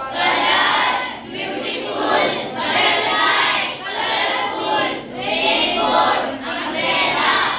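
A class of students reading words aloud together in unison, a word or short phrase about every second or so as the teacher points along the board.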